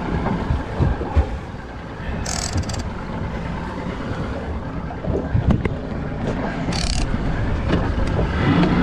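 Fishing boat's engine running under steady wind noise on the microphone, with two brief high hisses about two and a half and seven seconds in.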